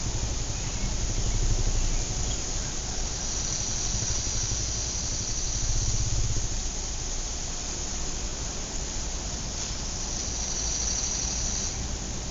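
Outdoor suburban ambience: a steady wash of background noise with the low rumble of a passing vehicle that fades away about halfway through. A thin high tone comes in twice over the hiss.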